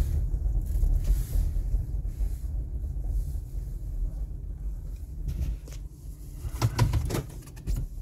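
Low, steady rumble of a car's engine and tyres heard from inside the cabin while driving, with a few light knocks about two thirds of the way through.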